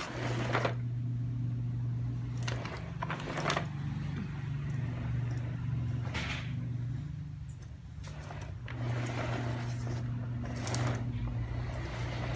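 Scattered knocks and rattles of a plastic toy push walker as a baby grabs and turns its wheels, over a steady low hum.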